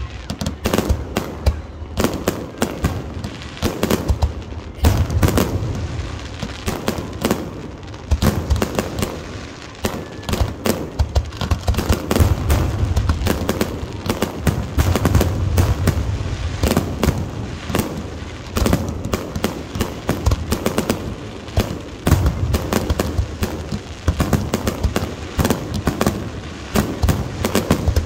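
Fireworks display going off in rapid succession: many overlapping bangs and booms with crackling, barely a gap between them.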